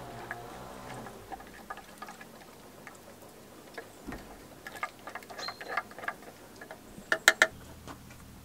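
Light ticks and taps of a wooden spoon stirring coffee in a small copper cezve set in hot embers, with a quick run of sharp clicks near the end.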